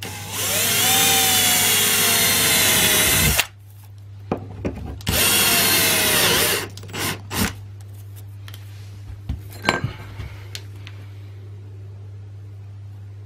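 Cordless drill with a 5.5 mm split-point metal bit boring through a stack of PVC binder covers: a run of about three seconds, then a shorter one of about a second and a half, its whine dipping slightly in pitch as it cuts. A few light clicks and knocks of handling follow.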